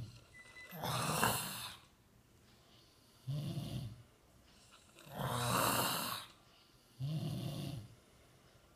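Snoring in a slow repeating cycle about four seconds long. A short, low-pitched snore alternates with a longer, breathy hiss of breath, each heard twice, with quiet pauses between.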